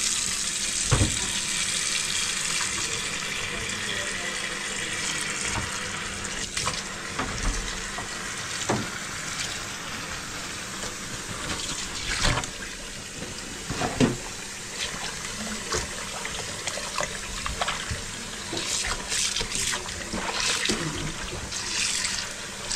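Kitchen tap water running into a plastic basin in a stainless steel sink, a steady rush, with several short knocks and clatters as things are handled in the sink.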